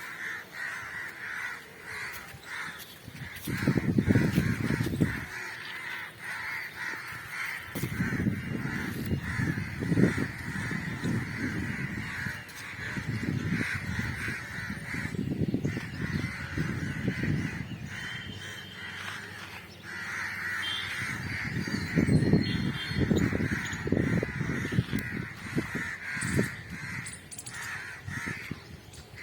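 Outdoor animal calls over a steady high-pitched drone, with recurring low rumbles lasting one to four seconds that are the loudest part.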